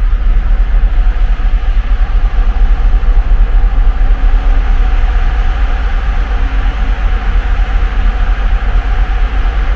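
Steady, loud rumble on the open deck of a large passenger ship under way: wind buffeting the microphone over the constant noise of the ship's engines and machinery.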